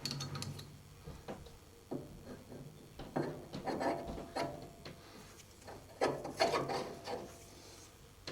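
A shaft being pushed and worked into the freshly bored 1.25-inch vertical column bore of a Quorn Mk3 tool grinder's cast base, metal rubbing and scraping in two spells with a few light knocks. The bore is about half a thou over size, a close sliding fit.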